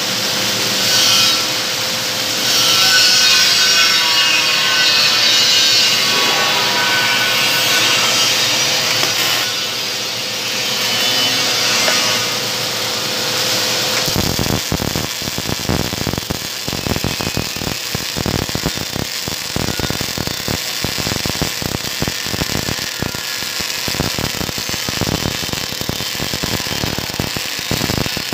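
MIG welding on thick steel plate with an OTC MIG welder. For about the first half there is a loud, steady hiss with a faint hum. About halfway it turns abruptly into the fast, continuous crackle of the arc as the wire feeds into the joint, with sparks spattering.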